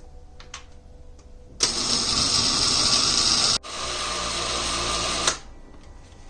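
Electric blender grinding soaked chana dal and urad dal with cumin and red chilies, run in two short bursts of about two seconds each with a brief stop between, the second a little quieter, to keep the lentil batter coarse.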